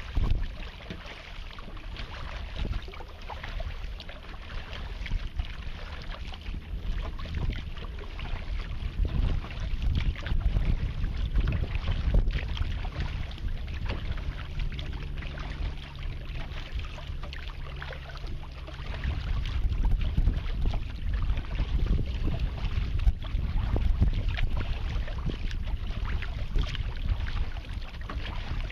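Wind buffeting the microphone, with choppy water lapping and splashing against a kayak's hull in an uneven, gusty rush.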